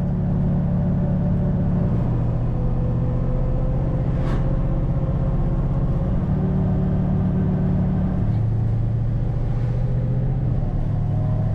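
MAN Kat 4x4 truck's engine running steadily under way, heard from inside the cab as a low drone whose pitch shifts in steps a few times.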